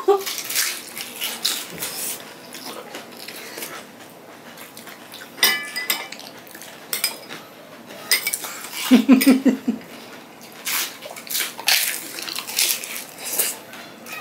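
Eating velpuri: crisp puri shells crunching in bites, and a spoon clinking against glass bowls and plates, with one ringing clink about five and a half seconds in.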